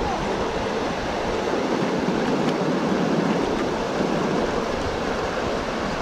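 Steady rush of river water pouring over rock ledges and small cascades.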